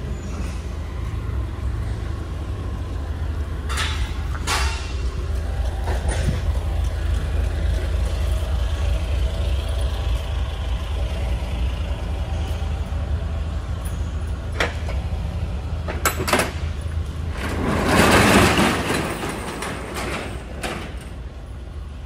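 Loading-dock noise: a steady low rumble of forklift and truck engines running, with a few sharp clanks and a loud rushing noise of about a second and a half near the end.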